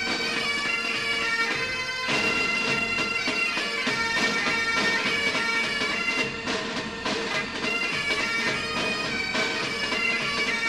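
Bagpipe music: a melody played over a held drone.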